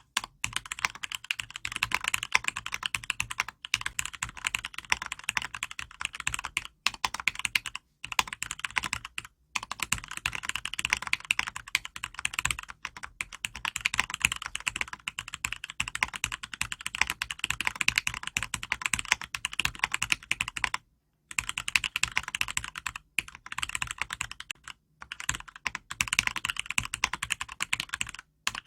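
Continuous fast typing on a mechanical keyboard in an acrylic case, with Cherry MX Red linear switches lubed with Krytox 105 and filmed, giving rapid clacks broken by a few brief pauses.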